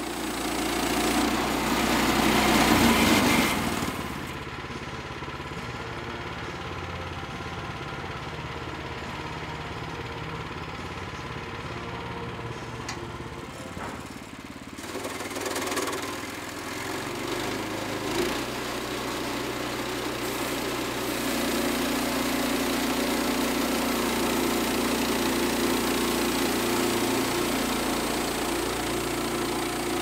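Woodland Mills HM122 portable bandsaw mill running, its small gas engine driving the band blade through a log. Louder for the first few seconds, dipping briefly near the middle, then a steadier, slightly louder run with a low hum in the last third.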